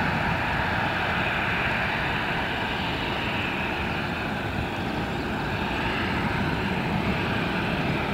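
Airbus A319's twin CFM56 turbofan engines at takeoff thrust as the airliner lifts off and climbs: a steady jet engine noise that holds an even level throughout.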